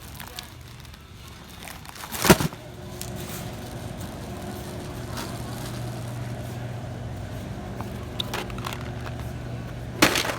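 A loud thump about two seconds in, then a vehicle running with a steady low hum, with a second thump near the end.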